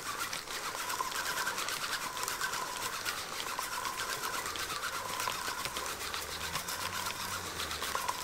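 Vigor LM spinning reel being cranked steadily by hand, its gears and rotor whirring with a fast, even ticking as braided line winds onto the spool.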